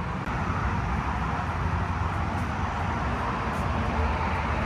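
Steady low rumble and hiss of vehicle noise, with no distinct events.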